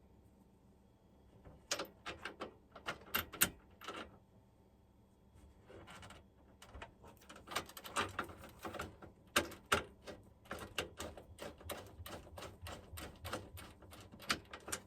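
Hand tools and metal mounting hardware clicking and clattering in two runs of quick, irregular sharp clicks.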